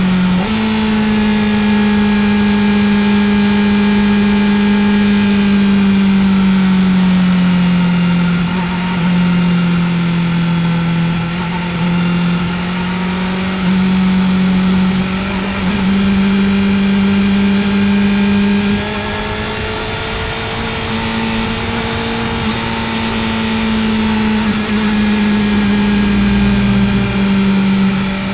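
Kawasaki Ninja ZX-4R's 399 cc inline-four engine running at steady mid-to-high revs while the motorcycle is ridden. The pitch rises and falls gently with the throttle: it steps up just after the start, sags slowly around ten seconds in, and climbs again toward the end, with a steady rush of wind behind it.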